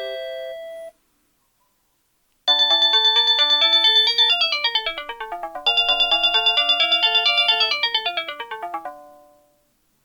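Panasonic KX-TG8125 cordless phone playing one of its ringtones: a fast electronic melody of quick notes that plays through twice and then fades out. It comes after the last note of the previous ringtone fades and a pause of about a second and a half.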